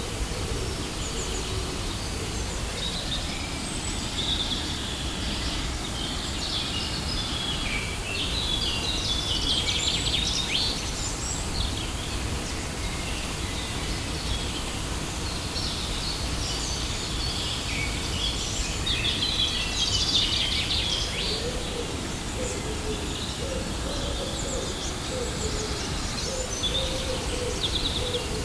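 Steady rushing of a waterfall, with birds singing over it in several bursts of high chirps, the busiest around ten and twenty seconds in.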